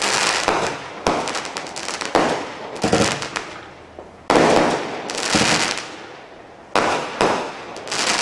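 Standard Fireworks Blast Furnace single-ignition cake firing: about half a dozen loud shell bursts at uneven intervals, each followed by a fading crackling shower.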